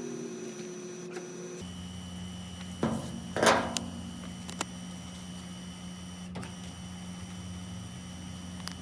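A steady electrical hum switches on about a second and a half in, with a few sharp knocks or clicks over it, the loudest about three and a half seconds in.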